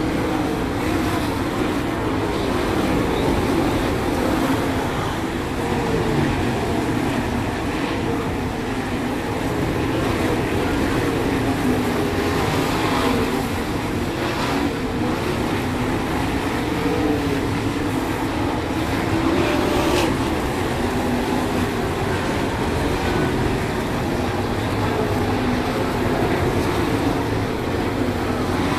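A field of 410 sprint cars' methanol-burning V8 engines racing at speed on a dirt oval, a continuous engine din whose pitch rises and falls as cars pass and back off for the turns. There is one sharp click about twenty seconds in.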